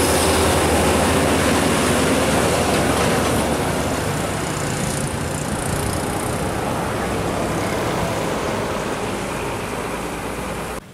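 Diesel engine and tyre noise of a Hino LPG tanker truck passing close and pulling away, with a steady low engine hum; loudest at the start and gradually easing off.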